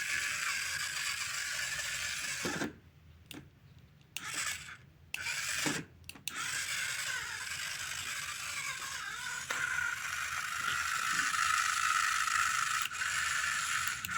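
Small electric motor of a homemade wired toy car whirring as it drives the wheels, switched off about two and a half seconds in, run in two short spurts, then running steadily again from about six seconds in, with a higher whine in the last few seconds.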